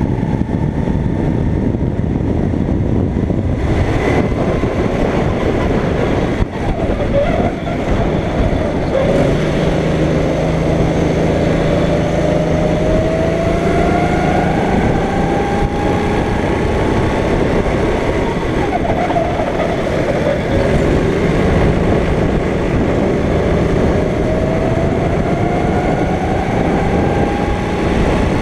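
Go-kart engine running hard under a dense rumble, its pitch climbing slowly twice as it gathers speed and falling away in between as it slows.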